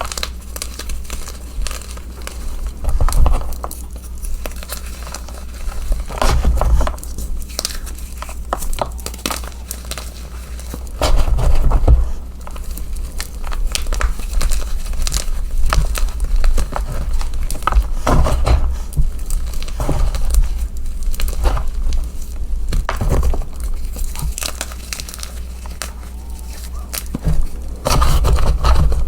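Chunks of gym chalk being crushed and crumbled by hand close to the microphone: a steady crunchy crackle, with louder squeezes every few seconds, about six in all.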